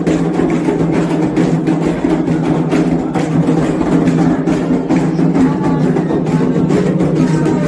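Music with rhythmic drumming and woody percussion strikes over a steady low accompaniment.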